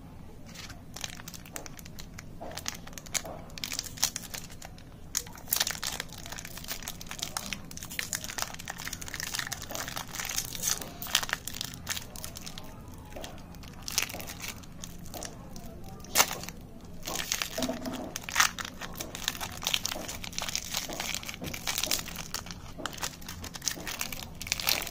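A chocolate bar's plastic-and-foil wrapper being crinkled and torn open by hand: irregular crackling and rustling, with a few sharper snaps.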